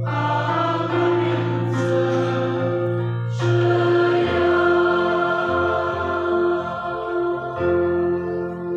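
Mixed church choir singing a hymn in long held chords with keyboard accompaniment. The chord changes about three and a half seconds in.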